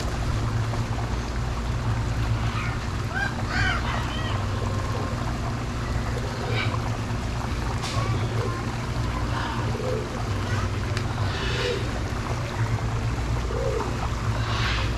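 Outdoor ambience: a steady low rumble with scattered short voices and calls over it.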